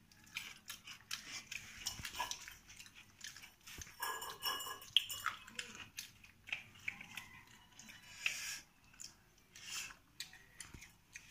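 Two people eating rice and curry by hand from steel plates: irregular chewing and lip-smacking with small clicks and taps, and a brief louder burst of sound about four to five seconds in.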